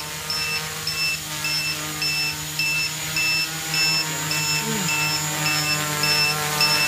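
Small electric quadcopter hovering, its motors and propellers making a steady hum. Over it, an electronic buzzer beeps about twice a second in a high, even tone.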